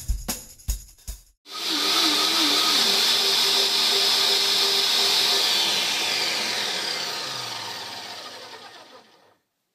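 Drum-beat music cuts off about a second and a half in. Then two blenders, a Vitamix Professional Series 750 and a Ninja 1500, run together loudly on a vegetable smoothie with ice: a steady high whir. In the second half it falls in pitch and fades as the motors wind down, stopping near the end.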